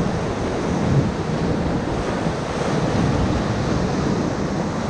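Whitewater rushing around a raft in a Class III rapid, a steady loud rush of churning water with wind buffeting the microphone.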